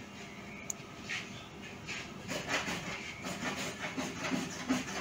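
Faint handling noises as multimeter probes and their leads rub and tap against a small plastic pickup coil, with a sharp click about a second in and several softer ones.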